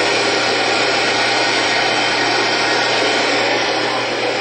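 Steady radio static hiss from a weather radio receiver losing the broadcast signal, with a constant low hum beneath it.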